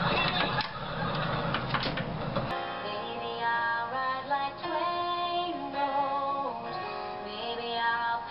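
A few seconds of loud, noisy room sound, then an abrupt cut to young women's voices singing a melody together, the notes held and stepping up and down.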